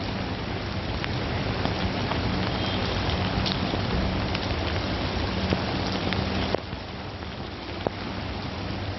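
Heavy rain pouring onto a city street, a dense steady hiss with scattered sharper drips and splashes, over a steady low hum. A little past two-thirds in, the rain sound drops somewhat quieter.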